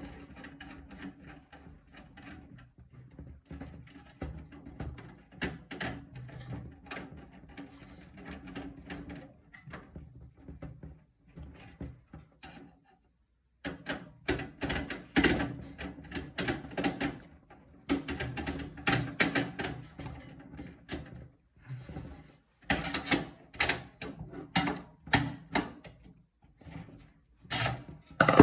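Repeated clicks, knocks and rattles of hands and tools working on a metal computer case during disassembly. They are lighter in the first half and louder and busier after a short break about halfway.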